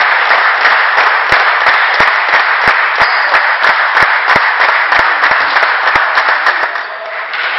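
Spectators applauding a won point in a table tennis match, with one clapper close by keeping an even beat of about three claps a second. The applause dies away near the end.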